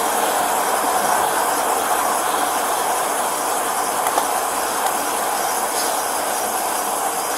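Steady, even roadside background noise, a constant hiss with no distinct events.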